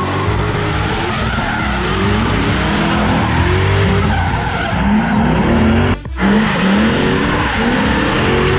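Drift cars' engines revving up and down with tyres squealing, mixed with background music with a steady bass line. The sound drops out for a split second about six seconds in.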